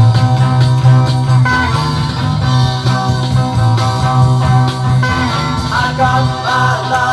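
Instrumental opening of a mid-1960s rock single: electric guitar lines over a steady bass.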